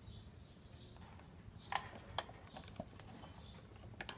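Wall fan's plastic motor housing and wire guard being handled: a few sharp knocks and clicks, the loudest just under two seconds in and a close pair near the end.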